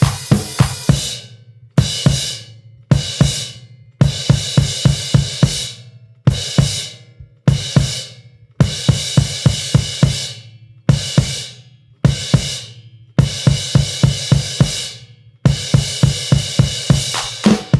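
Background music with a steady drum beat: kick, snare and cymbal hits in short repeating phrases.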